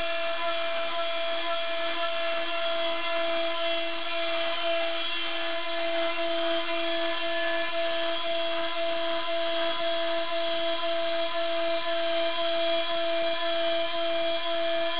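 CNC router spindle running steadily while milling a pulley: an even, high-pitched whine over a hiss of cutting noise.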